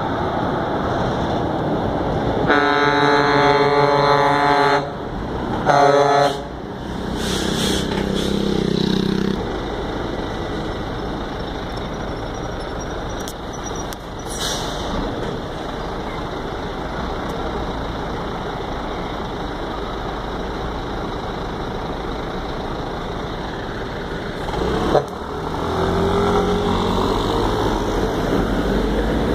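Truck air horn sounds a blast of about two seconds, then a short toot. It is followed by the diesel engine of a Volvo FH12 420 tractor unit running steadily close by, and near the end the engine note rises.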